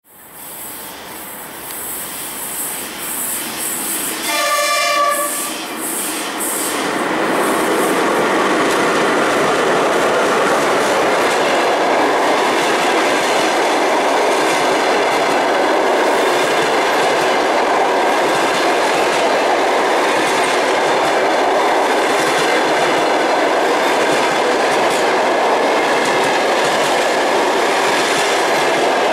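A ChS7 electric locomotive hauling a passenger train approaches, growing louder, and gives one horn blast about a second long a few seconds in. The passenger coaches then roll past with a steady, loud noise of wheels on the rails.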